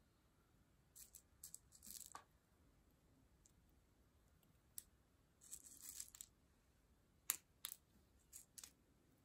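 Faint, scattered clicks and rustles of small seed beads being picked up with a needle from a plastic bead tray and threaded onto elastic jewellery cord. There are several short, sharp ticks, the clearest about seven seconds in.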